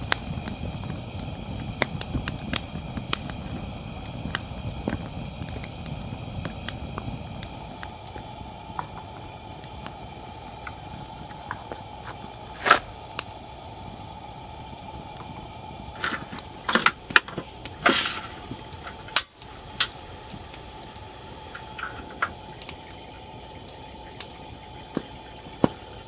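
Campfire burning: wood crackling with scattered sharp pops over a steady low rustle of flame. A few louder pops come about 13 seconds in and again between 16 and 18 seconds.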